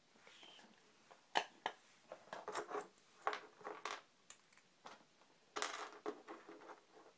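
Small plastic Beyblade parts and sticker backing handled, giving a scatter of light clicks and short crinkly rustles, the sharpest click about a second and a half in.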